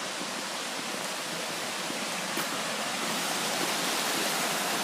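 Steady rush of the Ishikari River's water, an even hiss that grows slightly louder toward the end. There is one faint click about two and a half seconds in.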